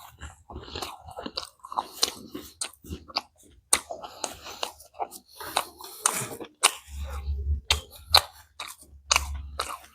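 Chewing and crunching a mouthful of pani puri (golgappa), the fried crisp shell crackling in many irregular bites.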